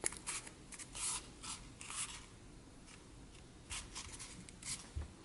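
Fingers rubbing and pressing along a folded cardboard model piece, making faint, short scratchy rubs at irregular intervals.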